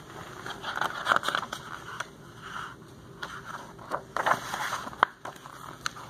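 Large picture book being handled and its pages turned: irregular paper rustling and scraping, louder about a second in and again past the middle, with a few sharp crackles and taps near the end.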